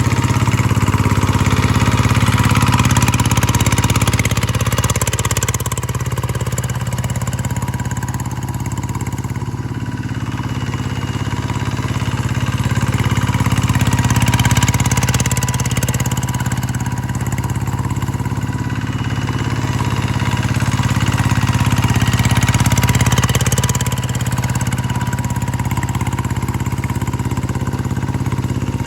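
G1000 hand tractor engine running steadily, with slow, gentle rises and falls in level.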